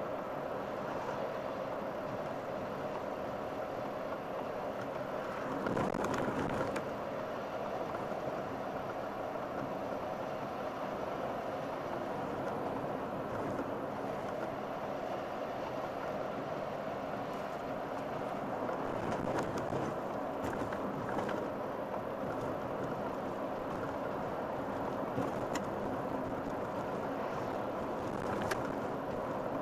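Steady road and engine noise heard inside a moving car, with a brief louder swell about six seconds in and a few faint clicks near the end.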